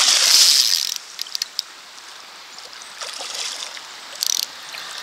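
A steelhead thrashing and splashing in shallow stream water for about a second, then swimming off, leaving the steady trickle of the stream with a few small splashes.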